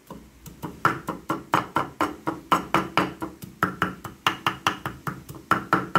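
A broad cleaver-style kitchen knife chopping tomatoes on a wooden chopping board: rapid, even knocks about five a second as the tomatoes are minced fine, with a brief break a little past halfway.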